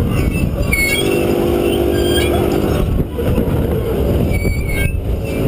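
Wind rushing over the microphone on a Capriolo Eclipse ride gondola in full swing, with short high squeaks from the gondola's unlubricated pivots.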